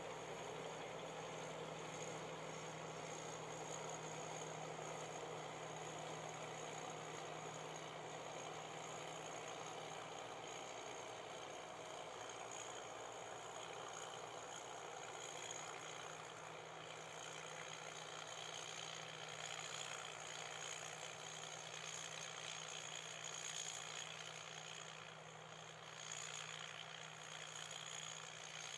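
Tracked rice combine harvester running steadily while cutting, a constant engine hum under the noise of its working machinery.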